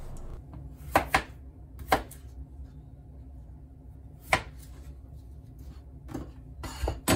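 Kitchen knife chopping potatoes into chips on a plastic cutting board: about half a dozen sharp knife strikes at irregular gaps.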